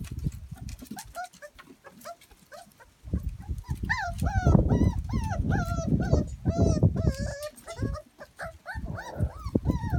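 Cockerjack puppies (Jack Russell cross Cocker Spaniel) yipping and whining in many short, high-pitched cries, thickest in the middle, over a low rumble.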